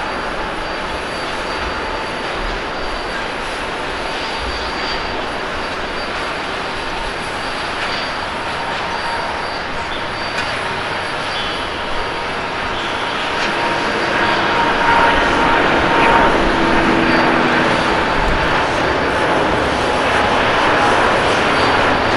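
Airbus A350's Rolls-Royce Trent XWB turbofans at takeoff power during the takeoff roll: a steady jet rush with a thin, steady whine on top. It grows louder about two-thirds of the way through as the airliner accelerates past and lifts off.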